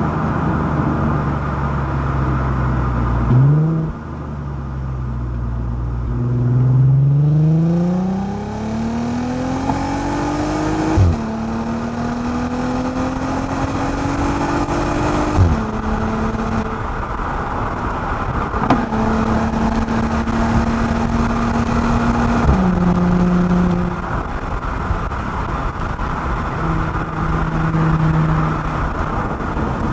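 Volkswagen Passat 3.2 FSI VR6 exhaust, with the front resonators deleted and an OEM R36 cat-back, accelerating through the gears. The engine note climbs over several seconds, then drops sharply at each of a few quick upshifts before settling into steady cruising.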